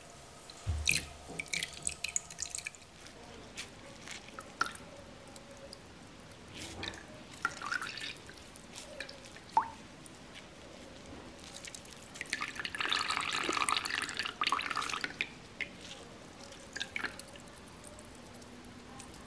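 Milky doburoku (unrefined sake) dripping from a squeezed cloth bag of fermented rice mash into a stainless steel mesh strainer and bowl: scattered single drips, with a denser trickle for a few seconds about two-thirds of the way through.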